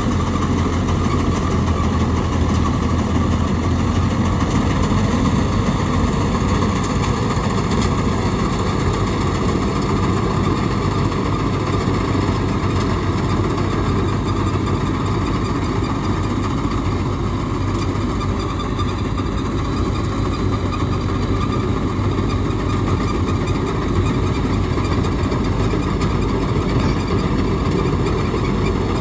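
Mahindra Arjun Novo 605 DI tractor's diesel engine running steadily under load, driving a Gahir Nippy45 tractor-mounted mini combine harvester as it cuts and threshes rice; a continuous low engine hum mixed with the noise of the threshing machinery.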